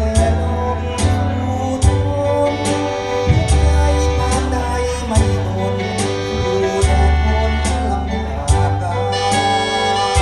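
Band music with sustained pitched notes, a strong bass line and a steady drum beat.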